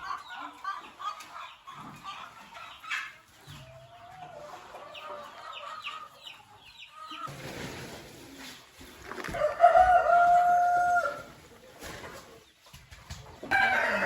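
Chickens clucking with short calls, and a rooster crowing loudly about nine seconds in, its crow held for a couple of seconds on a steady pitch.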